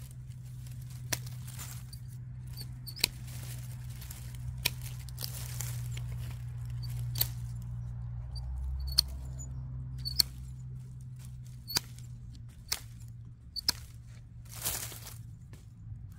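Hand pruning shears snipping through small dry twigs, a sharp snip every second or two, about a dozen in all; the blades are in need of sharpening. A brief rustle of dry leaves near the end, over a steady low hum.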